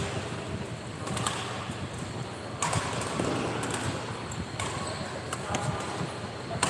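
Badminton rally: rackets striking a shuttlecock back and forth, several sharp hits roughly a second apart over a steady hall background.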